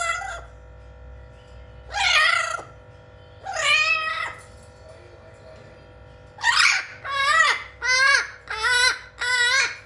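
Blue-fronted Amazon parrot giving a series of loud, drawn-out pitched calls, about eight in all: three spaced out, then five in quick succession near the end.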